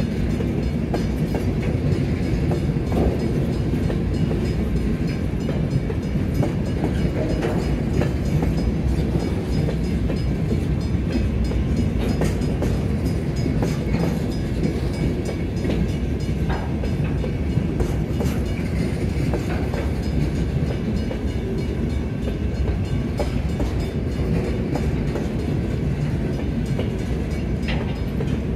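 Freight train of empty centerbeam flatcars rolling past: a steady rumble of steel wheels on the rails, with scattered clicks and clanks throughout.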